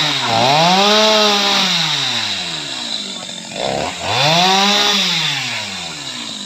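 Chainsaw revved up and let back down twice, its pitch rising and then falling over about two seconds each time, the second rev starting about four seconds in.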